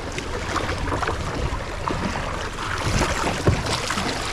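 Sea water sloshing and splashing at the side of a fishing boat over a steady low rumble, with scattered knocks.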